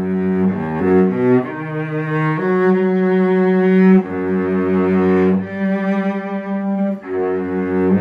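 A 7/8-size Stradivari-model cello by Jan Szlachtowski played solo with the bow: a slow line of long held notes in the lower register, changing note every second or so.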